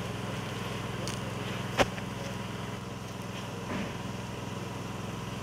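An engine running steadily with a low hum, with a sharp knock about two seconds in and a softer one later.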